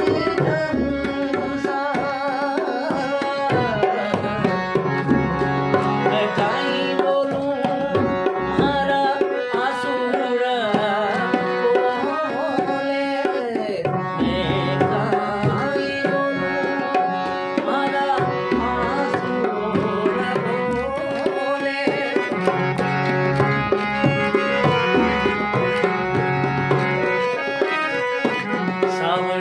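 A Rajasthani folk song played on a harmonium, with steady drum accompaniment and a man's singing voice gliding in and out over the held harmonium notes.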